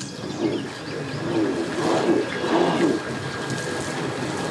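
Jet ski engine revving up and down several times in short throttle blips, over splashing water.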